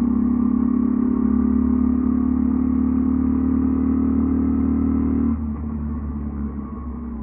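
Mutt Akita 125's single-cylinder four-stroke engine and exhaust pulling steadily under throttle, the pitch creeping slightly higher. About five seconds in the sound drops abruptly and then fades as the revs fall away.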